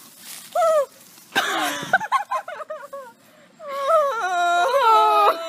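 A young woman's high-pitched wordless vocalizing: short squeaky whimpers, then a long wail near the end that steps up and down in pitch.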